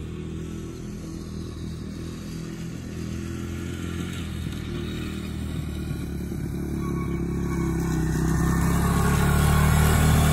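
2002 Honda XR100R dirt bike's single-cylinder four-stroke engine running at steady revs in third gear as the bike is ridden around. It grows steadily louder over the last few seconds as the bike comes closer.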